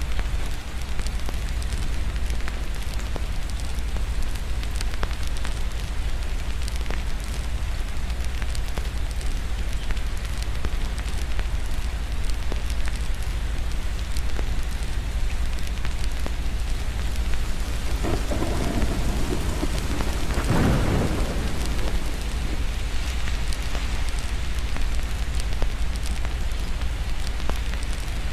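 Steady rain with a low rumble underneath and scattered sharp ticks throughout. A roll of distant thunder swells up about two-thirds of the way in.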